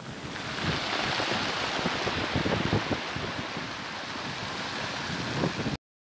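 Breaking surf washing in over a pebble beach, foaming water rushing and hissing, with wind buffeting the microphone. The sound swells about half a second in and cuts off suddenly near the end.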